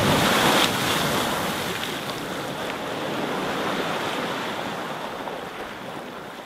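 Geyser erupting: a sudden loud rush of spouting water and steam, loudest in the first second, that slowly dies away.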